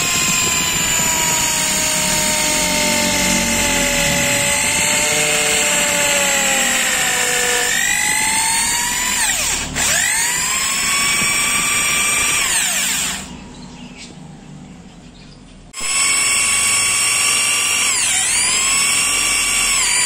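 Corded electric drill boring a hole into the end of a dry wooden branch, its motor whine sagging in pitch and recovering several times as the bit bites into the wood. It stops about 13 seconds in and starts again near 16 seconds.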